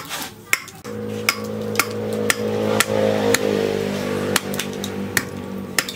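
Repeated chops of a large machete-like knife into a wooden root, about two sharp strikes a second. A steady low hum, like a motor, runs under the chops from about a second in and fades near the end.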